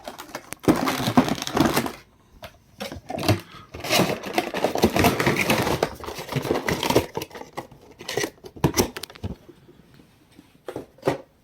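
Funko Pop box packaging being handled and opened: cardboard and plastic rustling and scraping for several seconds, then a few sharp clicks and knocks near the end.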